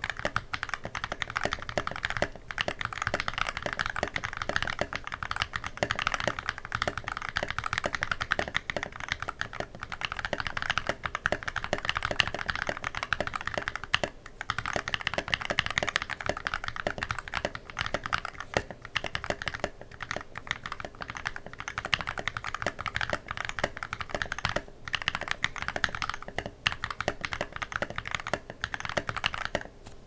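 Fast, continuous typing on a tenkeyless mechanical keyboard fitted with lubed frankenswitches: Bsun YOK housings with Kailh burgundy linear stems and 72g springs, greased with 205g0 on the housings and 3203 on the stems. The rapid keystrokes break off briefly three times.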